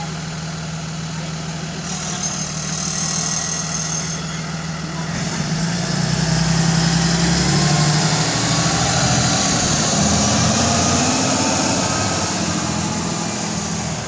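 Blue Bird Vision school bus engine running at the kerb, then getting louder with a rising pitch as the bus pulls away and accelerates, fading off near the end.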